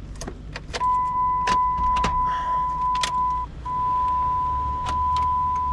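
A steady, high electronic warning tone from the Dodge Ram's dash, starting about a second in and breaking off briefly midway, with scattered irregular clicks of plastic steering column parts being handled.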